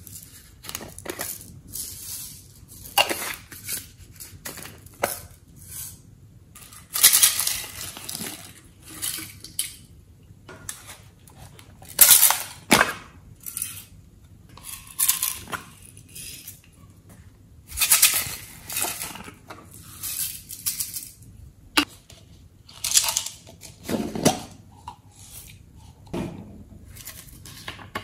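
Glitter and sequins being shaken out of small plastic containers onto slime: a series of separate rattling shakes, each about a second long, with sharp plastic clicks and taps between them.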